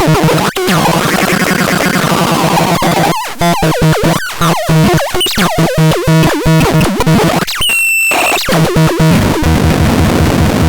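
Synthesizer playing a dense, clashing electronic sound with a pulsing low note, stuttering cuts and sliding pitches, and a brief high whistling tone about eight seconds in.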